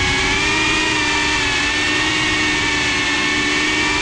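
FPV racing quadcopter's motors and propellers whining at a nearly steady pitch as it circles, heard from the GoPro mounted on the drone, with a rushing noise underneath.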